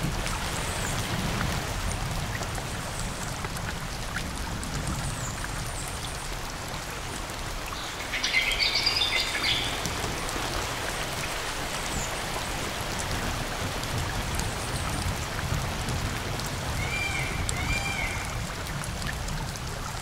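Steady rain falling in a forest. A bird sings a short burst of notes about eight seconds in, and gives two quick arched calls near the end.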